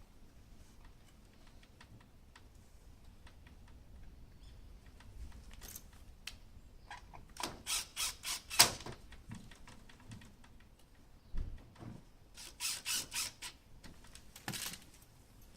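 Light clicks and taps of hand work on a wooden sliding door during glass replacement, with two quick runs of four or five sharp taps, midway and again about three quarters of the way through.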